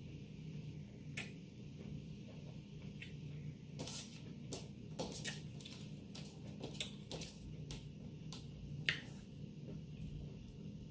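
Scattered sharp clicks and crackles of broken hard taco shell pieces and long fingernails against a plate as the pieces are picked up by hand, with a cluster about four to five seconds in and the loudest click near nine seconds.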